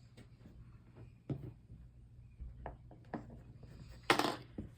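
Small clicks and taps of glass pieces and lead came being handled on a worktable, with a short, louder scraping rustle about four seconds in.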